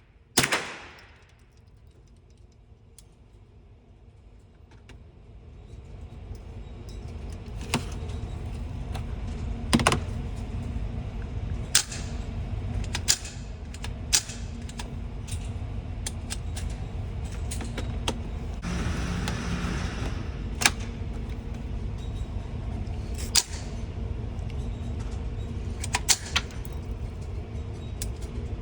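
Suppressed gunshot about half a second in, then a run of single suppressed shots spaced one to several seconds apart. From about five seconds in they sit over a low steady rumble.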